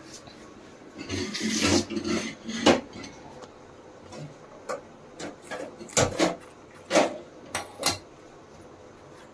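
Steel kitchen utensils clinking: a spoon knocking against a small steel bowl and steel plates in a few scattered sharp clinks, with a scraping rustle about a second in.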